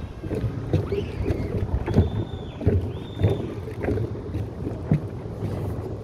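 Wind rumbling on the microphone over irregular knocks and creaks of a floating plastic pontoon pier moving on the waves, with two short high squeaks about two and three seconds in.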